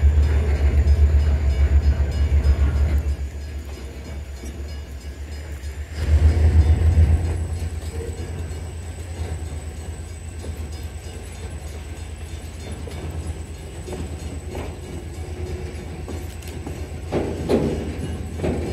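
Freight train of empty centerbeam lumber flatcars rolling past, its steel wheels rumbling on the rails. The low rumble swells in the first few seconds and again about six seconds in, and a few sharp clacks come near the end.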